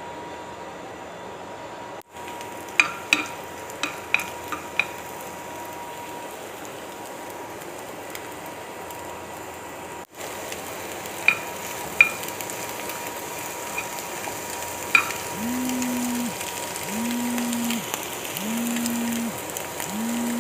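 An egg yolk frying in oil in a frying pan, sizzling steadily, with sharp taps and clicks of a spatula against the pan as the egg is broken up and stirred. Near the end, a low humming tone comes four times, evenly spaced and about a second each.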